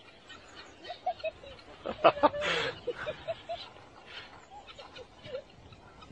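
Birds calling in short, scattered chirps. A louder, brief burst of a person's voice comes about two seconds in.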